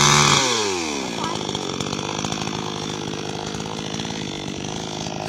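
Engine of a handheld chain saw cutter dropping from full speed to idle about half a second in, its note falling sharply, then idling steadily.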